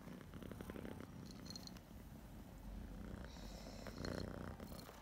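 A tabby cat purring in a low, steady rumble while being stroked, its fur rubbing and rustling against the microphone.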